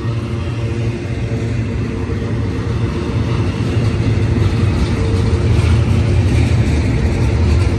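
Double-stack intermodal well cars rolling past on steel rails, a steady low rumble of wheels on track that grows louder about halfway through, with some higher-pitched wheel noise near the end.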